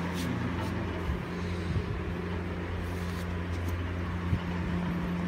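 A steady low mechanical hum with a few soft knocks, once near the start, once about two seconds in and once near the end.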